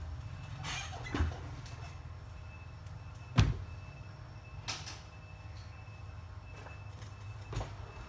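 Four sharp clicks and knocks of small tools on a workbench, the loudest about three and a half seconds in, over a steady low hum.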